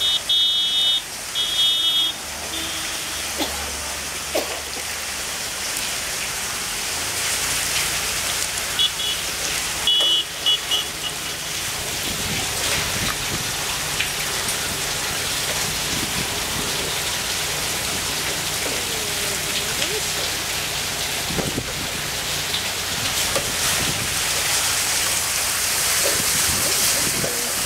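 Water pattering and splashing like rain as the bucket chain of a bullock-driven Persian wheel lifts water and spills it back down the well. Short high-pitched squeaks come near the start and again about ten seconds in.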